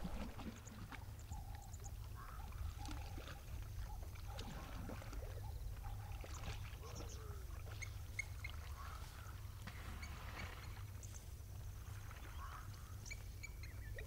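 A hippo wading into shallow water and swimming off, with water sloshing around its body. Scattered short bird calls and a steady low rumble run underneath.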